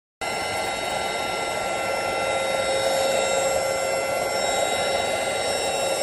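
Airbot Supersonics Aura cordless stick vacuum running, its motor a steady high whine with several fixed tones over a rush of air. It starts abruptly a moment in.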